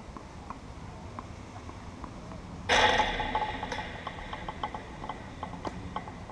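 A tennis ball striking the chain-link fence close by, about three seconds in: a sudden loud metallic rattle that rings and dies away over a second or so. Faint scattered pops of other balls being hit are heard around it.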